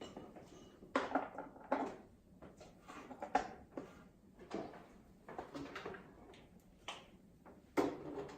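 Irregular knocks, taps and clatter of tools and parts being handled during computer repair work, with the loudest knocks about a second in, around the middle and near the end.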